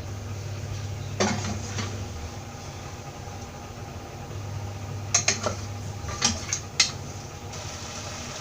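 Metal spoon knocking and scraping in a pot of boiled beef as it is stirred over the gas flame to dry off the cooking water, a few separate clinks over a steady low hum.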